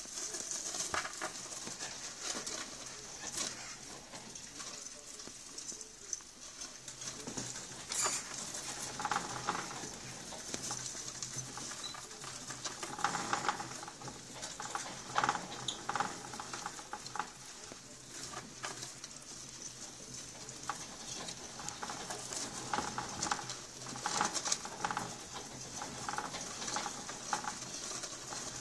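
Djungarian dwarf hamsters running in a plastic exercise wheel: the wheel clicks and rattles irregularly as it spins, with the scurry of small feet on the plastic.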